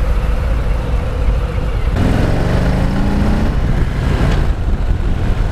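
2019 Harley-Davidson Heritage Softail's Milwaukee-Eight V-twin engine running on the road, with wind rush on the rider's microphone. About two seconds in, the engine note climbs steadily for about a second and a half as the bike accelerates.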